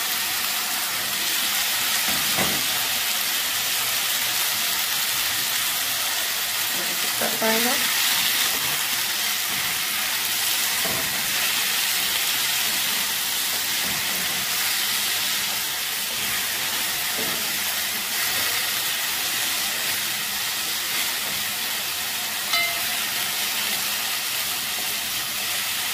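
Chopped vegetables (pumpkin, onion and sweet peppers) sizzling steadily in hot oil in a preheated pot while being stirred with a spoon, with a few brief knocks of the spoon against the pot.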